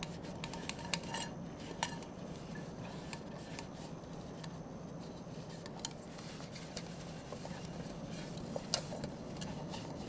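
Metal camping mug being handled and wiped out, giving light scrapes and scattered sharp clinks, a few louder ones, over a steady low hum.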